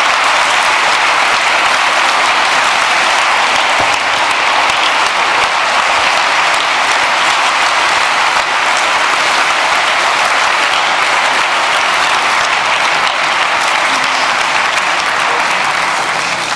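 A large audience applauding steadily in a big hall, dense continuous clapping that starts to die away at the very end.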